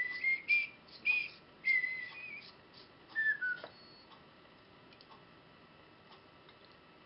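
Threaded steel rod being twisted inside a round hole in a plastic printer part to ream it out, squeaking and rasping in short high bursts for the first few seconds, then only faint scraping ticks.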